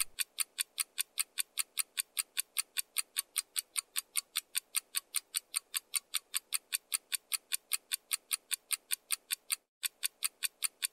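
Countdown-timer sound effect: a fast, even clock ticking at about four to five ticks a second, with one brief gap near the end.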